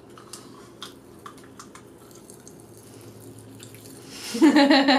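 Aftershock popping candy crackling in the mouth: scattered small sharp clicks and snaps, thickest in the first couple of seconds, then thinning out. A voice comes in near the end.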